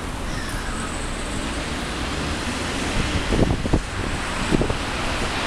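Wind rushing over the microphone of a camera on a moving bicycle, a steady noise with a few harder low buffets about three to four and a half seconds in.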